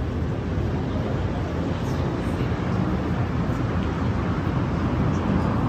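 Steady street ambience, mostly a low rumble of passing traffic.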